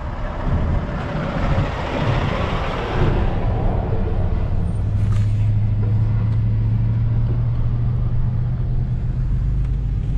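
Road and engine noise inside the cab of a moving Dodge Ram 3500 pickup with a turbo Cummins diesel: a steady low hum, with a rushing hiss that dies away about three seconds in.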